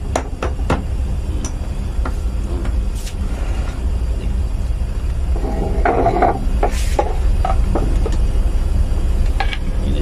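Steel wire rope strands and metal tools clicking and knocking as a thimble eye splice is worked by hand, with a louder metallic clatter about six seconds in. A steady low hum runs underneath.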